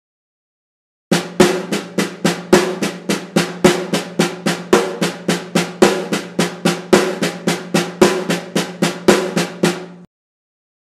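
Snare drum struck with wooden sticks in two measures of even sixteenth notes, about three and a half strokes a second. A louder rimshot, with the stick hitting the head and the rim at once, falls on the "e" of each beat, eight in all. The playing starts about a second in and stops suddenly near the end.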